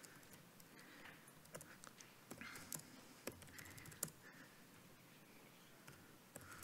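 Faint, scattered keystrokes on a laptop keyboard, a few separate taps a second or so apart.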